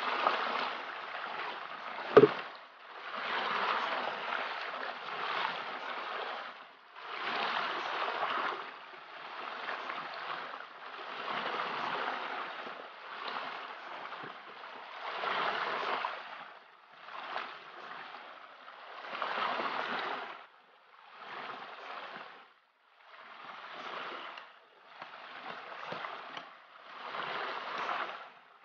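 Water sloshing and pouring from a bucket in repeated splashy swells, about one every two seconds, with a single sharp knock about two seconds in.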